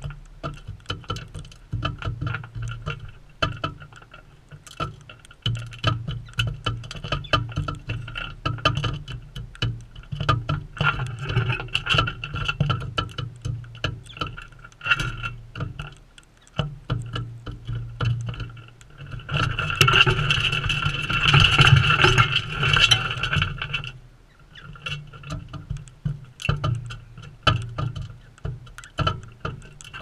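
Galahs pecking at seed on a hard surface right beside the microphone: rapid, irregular tapping and cracking. It grows louder and denser for a few seconds about two-thirds of the way through.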